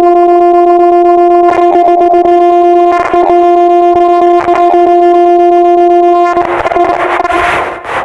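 A loud, steady horn-like tone held on one pitch for about six seconds. It then gives way to a rushing noise that stops near the end.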